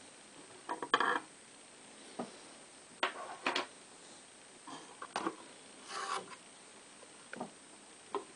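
Wooden rear deck of a radio-controlled model boat being worked loose and lifted off its hull: a string of short, irregular knocks, clicks and scrapes of wood against wood, the loudest about a second in.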